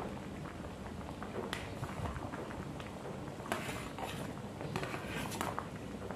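Pot of pork rib soup boiling, with irregular bubbling pops and clicks. About three and a half seconds in, a brief rustle and splash comes as chopped spring onions are tipped into the broth.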